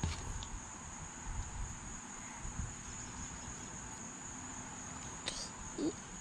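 Steady, high-pitched chirring of insects such as crickets, under a low rumble of handling noise, with a few light clicks near the end.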